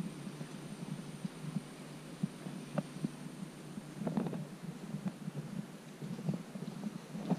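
Muffled footsteps, about two a second, and handling rumble from a hand-held action camera carried at walking pace, over a low hum, with a few light clicks.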